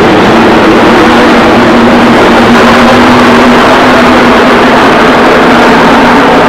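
A field of V8 stock-car racing engines running at full speed around the oval. A very loud, steady drone whose pitch shifts slowly as the cars go by.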